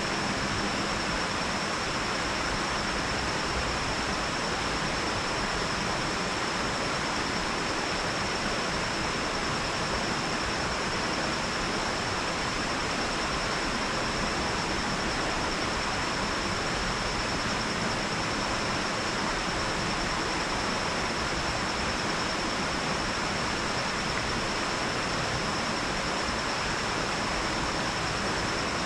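Water spilling over a lake dam into the creek below, a steady, unbroken rush.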